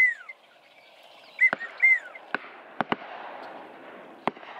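Distant shotguns firing, four sharp reports spread over a few seconds, from other duck hunters nearby on the marsh. Short, downward-sliding whistled calls come at the start and twice about a second and a half in.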